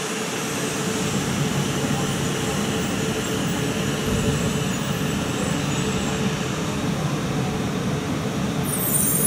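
Double-deck E4 Series Max Shinkansen running past, a steady rumble and rush of wheels on rail that slowly grows louder. A high squeal comes in near the end.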